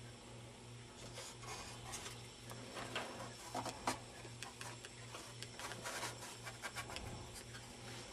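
Faint rubbing, scraping and light clicks of hands working on model parts, over a low, evenly pulsing hum.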